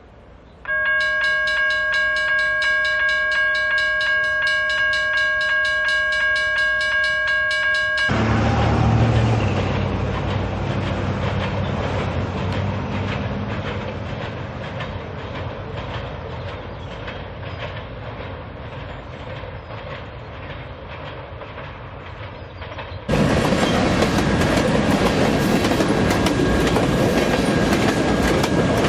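Freight locomotive's multi-note air horn sounds one long blast of about seven seconds for the crossing, then cuts off. The diesel locomotives rumble past with an even clickety-clack of wheels over rail joints, slowly fading. Near the end a much louder rushing rattle of passing freight cars starts suddenly.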